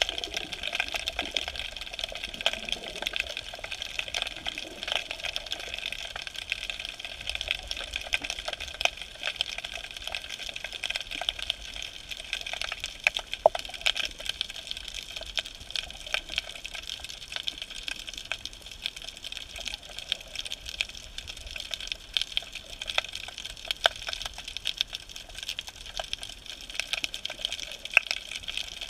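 Underwater ambience heard through a submerged camera: a steady water hiss peppered with dense, fine crackling clicks throughout.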